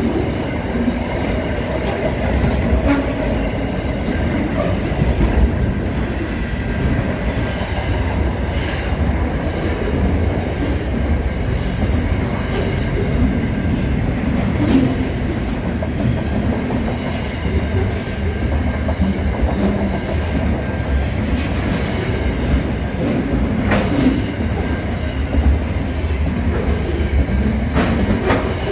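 Container freight train's wagons rolling past close by: a steady, loud rumble of wheels on rail, with irregular clicks and clanks as the wheels cross rail joints.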